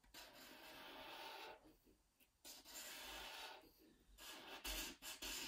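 Faint scratch of a marker pen drawing lines on paper, in three strokes of a second or so each.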